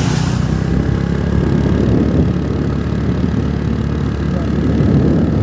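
A car drives past close by, its tyre and engine noise fading within the first half second. A steady low rumble of engines continues after it.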